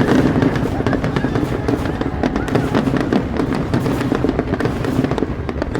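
Fireworks going off in rapid succession, a dense run of bangs and crackles, with music playing along.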